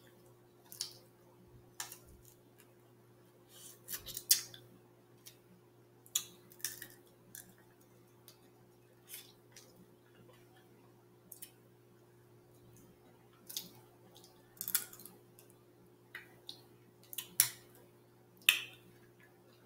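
Snow crab leg and shrimp shells cracking and snapping as they are broken apart and peeled by hand, with eating sounds between. The sound comes as scattered sharp clicks, the loudest about four seconds in and near the end, over a faint steady hum.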